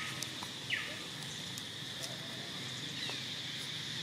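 Outdoor forest ambience: a steady high insect buzz, with a bird's short falling call at the start and again just under a second in.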